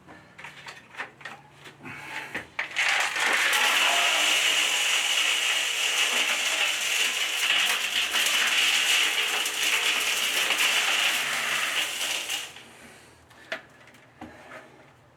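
Gravel being poured into a drain pit around a barrel: a few stones clicking, then about ten seconds of steady rattling rush that stops abruptly, followed by a few last clicks.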